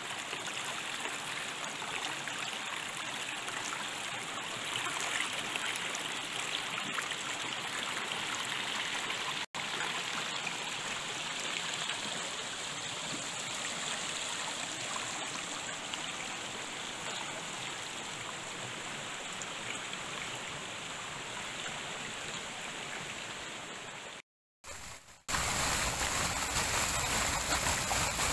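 Shallow brook rippling over mossy rocks: a steady rush of running water. About three-quarters of the way through it drops out for a second, then comes back as a louder, fuller rush of water pouring between boulders.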